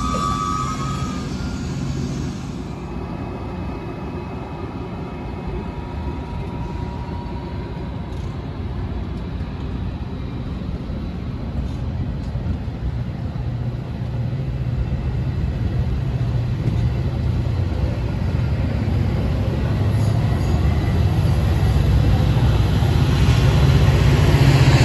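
Metra commuter train's bilevel gallery cars rolling past as the train pulls out, a steady rumble of steel wheels on rail. The diesel locomotive at the rear of the train grows louder near the end as it draws near.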